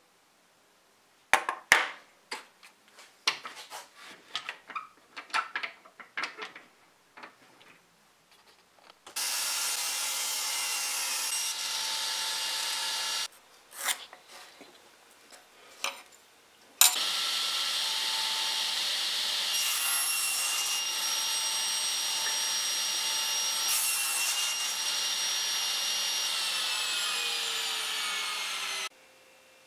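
Table saw cutting wood: two runs, about four seconds and then about twelve seconds, a steady motor-and-blade whine whose pitch sags slightly near the end before it stops abruptly. Before and between the runs come scattered light clicks and knocks of wood and a steel square being handled.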